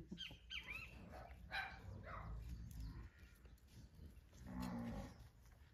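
Faint farm animal calls, with a cow mooing once near the end.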